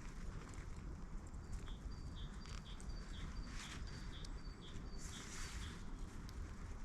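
A small songbird singing a short two-note phrase, repeated about twice a second for several seconds, over faint wind and scattered rustles and light clicks.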